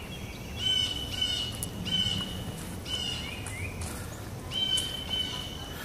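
A bird calling over and over, about once a second: each call a short rising note that settles into a held, high whistle.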